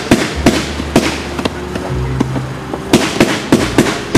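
Fireworks display: a fast, irregular run of sharp firework bangs and crackles, several a second, over loud music with sustained low bass notes.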